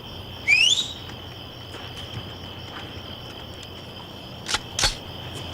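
Crickets chirping steadily. A short, loud rising whistle-like glide comes about half a second in, and two sharp clicks close together come near the end.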